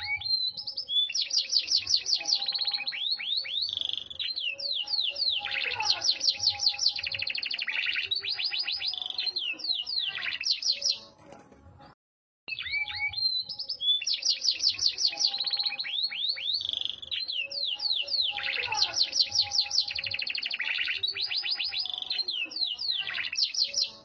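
Yorkshire canary singing: fast trills and rapid runs of repeated high notes. The song breaks off briefly about halfway through, then the same stretch of song repeats.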